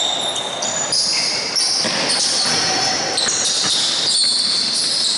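Basketball game play in a gym: sneakers squeaking on the hardwood court in many short, overlapping high squeaks, with the ball bouncing.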